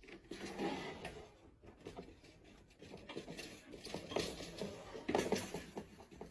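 Irregular light clicks, taps and rustling as a small plastic electric heater is swivelled by hand and a cat pats at its wire guard.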